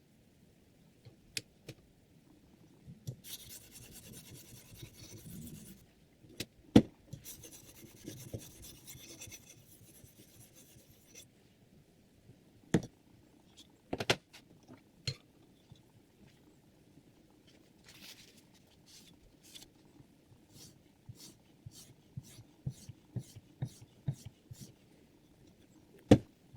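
Abrasive rasping of a sharpening stone drawn along a knife edge on a Hapstone R2 guided sharpener, in two long strokes. Between and after them come sharp clicks and knocks, then a quick run of light ticks near the end.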